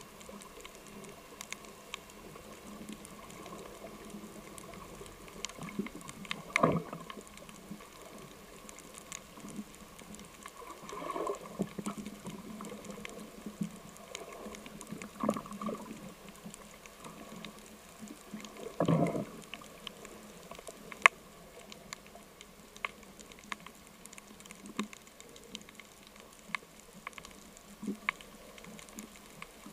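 Underwater ambience picked up by the diver's camera along a rocky reef: a steady low hiss scattered with many small sharp clicks and crackles, and four louder muffled bumps from the diver's own movement.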